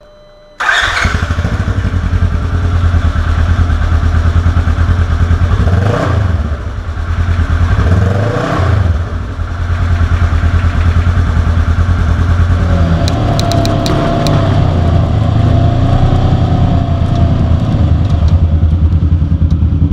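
Polaris RZR side-by-side's engine running under way, the revs dropping and climbing back twice about six and eight seconds in. A few sharp ticks come about two-thirds of the way through.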